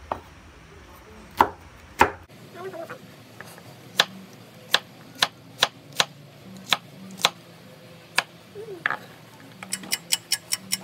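Knife chopping okra on a wooden cutting board: single sharp chops spaced about a second apart, quickening into fast chopping of several strokes a second near the end.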